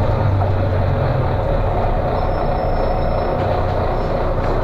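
Volvo B9TL bus's 9-litre six-cylinder diesel engine running loudly under way, heard from inside the bus. The deep engine drone eases about one and a half seconds in, and a thin high whistle sounds for about a second near the middle.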